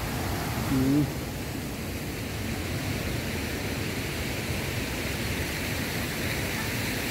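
Steady hiss of rain falling, with a short vocal sound about a second in.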